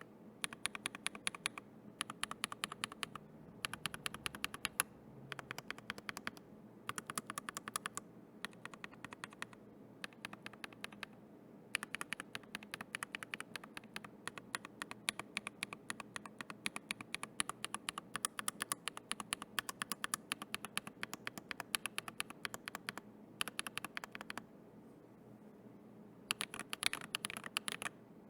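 Typing on a Tofu65 v3 mechanical keyboard with a brass plate, fitted with Glorious Panda tactile and Husky linear switches: runs of rapid, crisp keystrokes broken by short pauses, with a longer pause about 25 seconds in.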